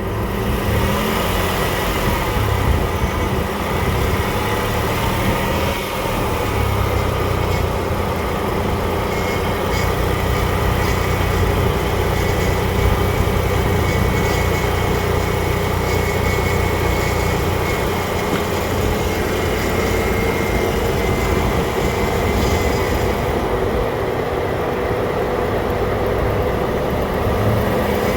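Car engine running steadily with the air-conditioning system on, a continuous even hum.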